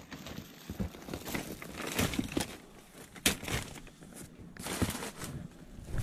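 Brown paper bags and cardboard boxes rustling and crinkling as items are rummaged through and moved, with scattered knocks. The sharpest knock comes just after the halfway point.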